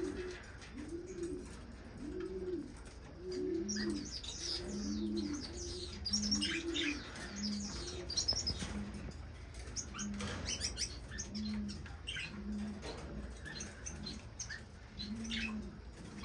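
Cage birds in a bird room calling: a low, repeated cooing call about once a second under a scatter of quick, high finch chirps.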